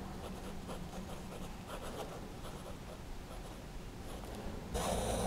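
Sailor Pro Gear Slim fountain pen's 21-karat gold medium-fine nib writing on grid-ruled notebook paper: faint, irregular scratching of handwriting strokes with small ticks, the feedback typical of a Sailor nib. A brief louder hiss comes near the end.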